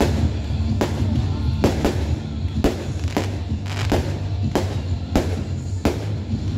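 Aerial fireworks bursting in a quick, uneven series of sharp bangs, about a dozen in six seconds, over music playing with a steady low bass.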